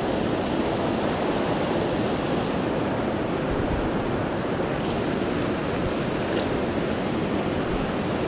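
Fast mountain creek running high and hard, a steady rush of white water over rocks.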